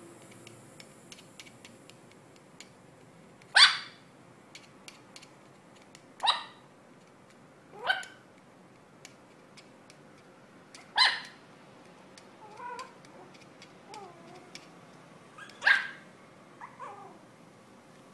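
Yorkshire Terrier puppy barking: five sharp, high yaps a few seconds apart, with a few quieter whines between the last two and just after the last.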